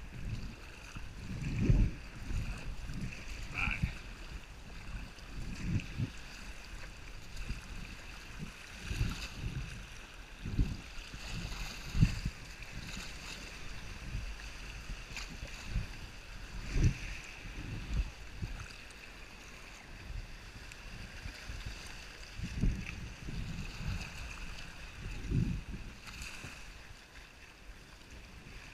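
Choppy sea water sloshing and slapping against a sea kayak's hull, with irregular low thumps, and wind on the microphone.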